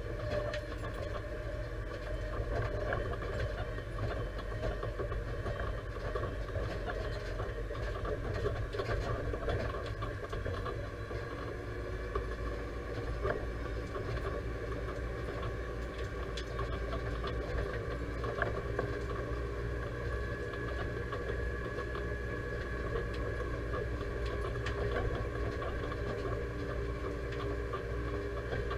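Deutz-Fahr 5100G tractor engine running steadily on the move, heard from inside the cab, with scattered light knocks and rattles.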